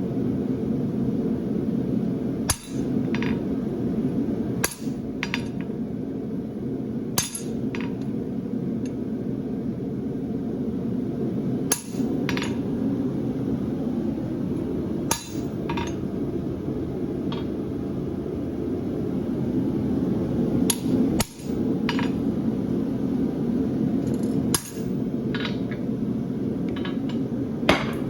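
Hand hammer striking a horseshoe creaser held on a hot steel horseshoe on the anvil: separate, unevenly spaced blows a couple of seconds apart, some ringing briefly, as the nail crease is run along the branch from heel to toe. A steady low hum runs underneath.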